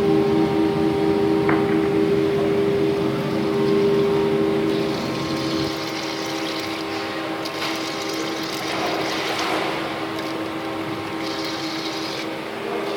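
CNC sinker EDM machine running: a steady hum of two close tones over a watery hiss, typical of the dielectric fluid pumping and circulating during machining. One of the hum tones stops about five seconds in, and the hiss turns brighter.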